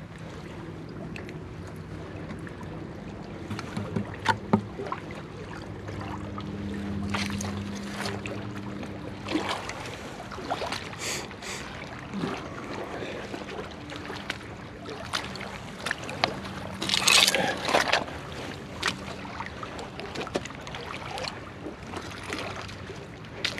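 Rubber boots squelching and crunching over mud and oyster shells at low tide, with scattered clicks of shell under foot and a louder burst of crunching about seventeen seconds in. A low engine drone runs underneath.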